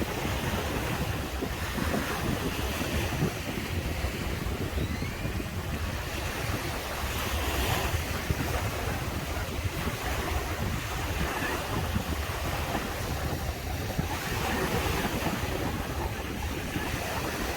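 Ocean waves breaking and washing ashore in a steady wash that swells about eight seconds in and again near the end, with wind rumbling on the microphone.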